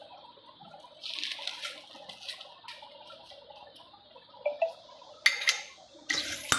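Metal parts of a 30 hp pump being handled during reassembly: a scraping rustle about a second in, then a few sharp metal clinks near the end.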